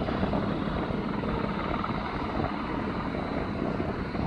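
Airbus H130 helicopter running, its turbine and rotor heard as a steady, even noise from some way off.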